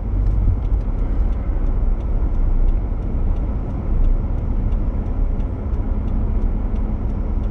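Road and engine noise inside a moving car's cabin: a steady low rumble, with a faint regular ticking about three times a second.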